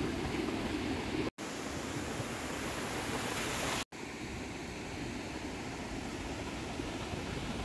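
Rushing water of a rocky river cascade, a steady even rush. It is broken twice by split-second silences.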